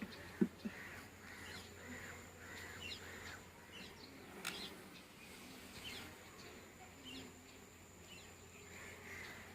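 Faint outdoor birdsong: crows cawing over and over, with small birds chirping and a thin steady high tone. Two short knocks come about half a second in.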